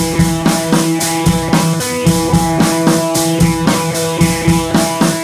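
Music with a steady drum beat of about two hits a second over sustained held notes.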